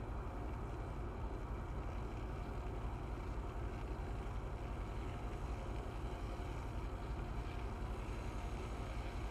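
Electric kettle heating water, a steady low rumble of bubbling that holds even throughout.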